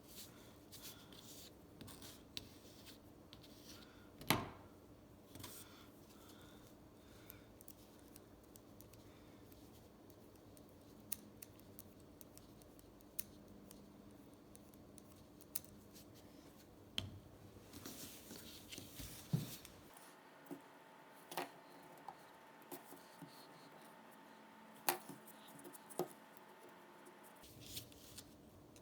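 Scattered light metallic clicks and scraping as the small parts of a ratchet head and hand tools are handled and picked at during cleaning. The clicks are irregular, not the steady run of a ratchet being turned.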